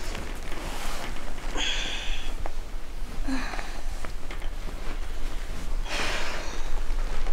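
A woman's short, noisy breaths and sniffs, a couple of seconds apart, as she wakes and sits up in pain.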